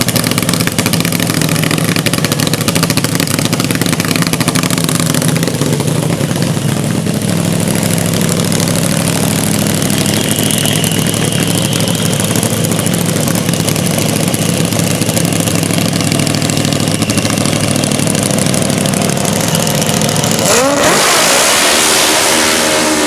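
Top fuel drag-racing motorcycle engine running steadily at a loud, even pitch. About twenty seconds in, the sound changes and the pitch rises as it revs.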